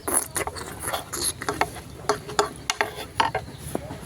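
Close-up eating sounds of a bowl of spicy noodles: irregular wet clicks and smacks of chewing and slurping, with utensils tapping the dish.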